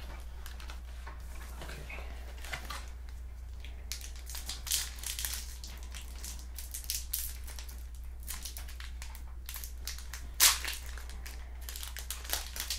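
Foil trading-card pack wrapper crinkling and crackling in the hands, in irregular bursts starting about four seconds in, with the loudest crackle a couple of seconds before the end. A steady low hum lies underneath.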